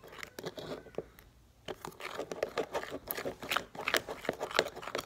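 Plastic spoon stirring thickening slime in a plastic tub: a quick, uneven run of clicks and scrapes against the tub, with a short lull about a second in. The glue mix is being worked with a Tide laundry-detergent activator as it starts to form.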